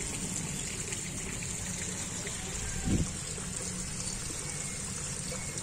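Steady splashing and trickling of water running into a concrete koi pond, with a dull thump about three seconds in.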